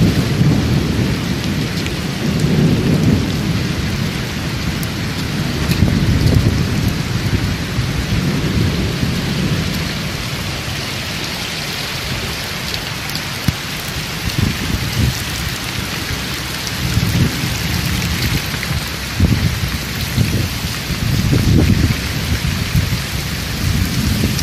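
Heavy rain hissing down on a flooded street, with floodwater running over the cobbles. Loud low rumbles swell and fade several times.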